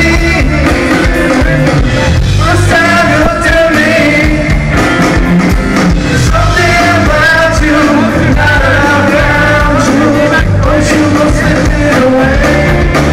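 Live rock band playing loudly: electric guitars and bass guitar in full swing mid-song.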